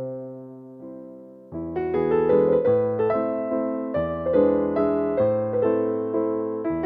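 Background piano music: soft held notes that swell into fuller, busier chords about a second and a half in.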